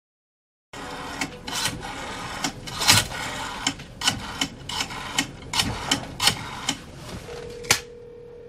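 A telephone's rotary dial being turned and run back, a rattling series of irregular clicks. Near the end a single steady telephone tone comes on in the line.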